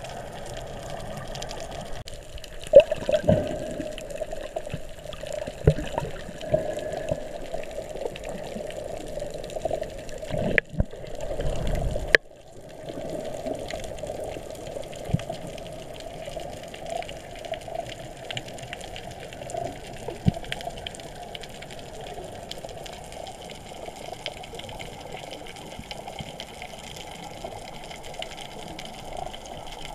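Underwater ambience heard through the housing of the camera that is filming the dive: a steady, muffled watery rush with scattered clicks and knocks. About twelve seconds in, a louder rushing stretch cuts off suddenly.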